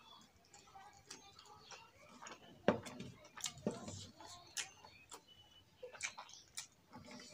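Irregular sharp clicks and smacks of eating rice and fish curry by hand: the mouth smacking while chewing, and fingers working rice on a steel plate. The loudest click comes about two and a half seconds in.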